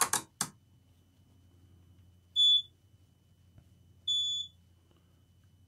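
Multimeter beeping twice, two short high single-tone beeps about a second and a half apart, the second a little longer, as its probes are put on a laptop motherboard's charging circuit to check for a short.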